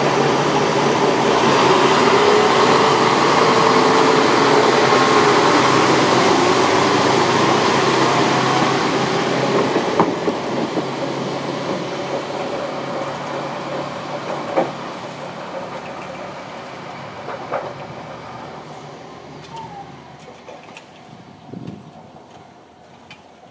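Single diesel railcar pulling away, its engine running under load and steadily fading as it moves off. A few separate clacks, spaced several seconds apart, come from the wheels crossing rail joints as it recedes.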